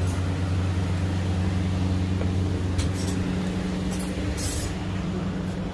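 A steady low mechanical hum, with short hisses about three seconds in and twice more around four seconds in.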